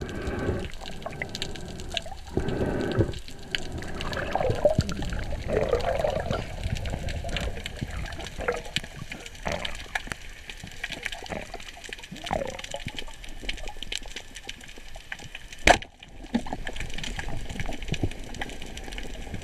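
Water sloshing and bubbling with scattered crackles, and one sharp click about three-quarters of the way through.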